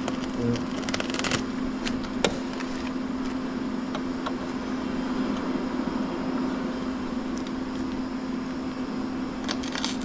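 A steady mechanical hum on one constant pitch, over a rapid rattling burst in the first second and a half and again near the end, with a sharp knock about two seconds in, as screws are driven in to fasten the door hardware.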